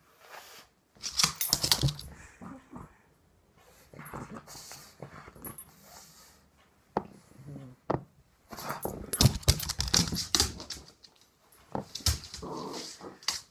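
Pug vocalising in irregular bursts with short quiet gaps, busiest in the second half.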